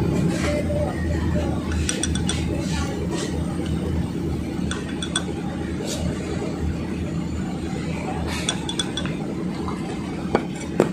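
A plastic measuring spoon scooping cornflour from a plastic jar and tapping against the jar and a clay bowl: scattered light clicks and clinks over a steady low hum.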